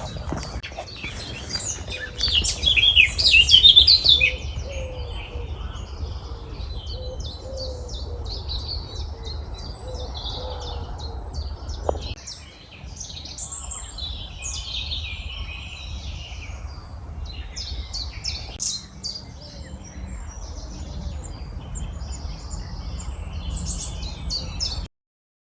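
Several wild birds singing and chirping in spring, overlapping songs and calls, loudest in a burst about two to four seconds in, over a steady low background rumble. The sound stops abruptly near the end.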